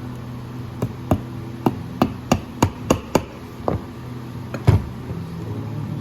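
About ten sharp, uneven hammer taps, the loudest near the end: a shoemaker's hammer striking as a leather boot vamp is tacked down while being crimped over a crimping board.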